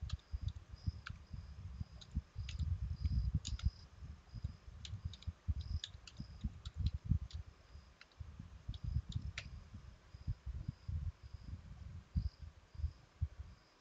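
Computer keyboard typing: slow, irregular key clicks with dull low thumps, and Enter pressed as a command is entered. A faint high-pitched chirping repeats steadily in the background.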